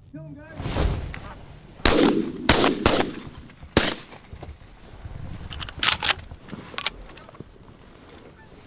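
A volley of shotgun blasts from several hunters firing at geese passing overhead: four loud shots in quick succession from about two to four seconds in, then a few fainter shots around six to seven seconds in.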